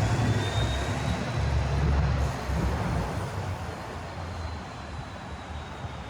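A heavy vehicle passing on the street: a low rumble that fades away after about three seconds, with a faint high whine that rises and then holds.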